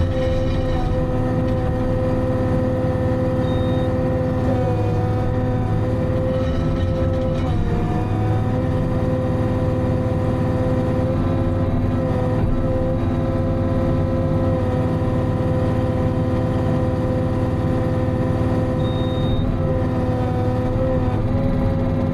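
Timberjack 608 tracked harvester's diesel engine and hydraulics running steadily, heard from inside the cab, with a strong steady whine over a low rumble. The pitch dips briefly several times as load comes on and off.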